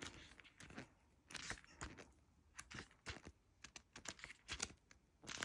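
Faint, scattered taps and light rustles of a tarot deck and its guidebook being handled.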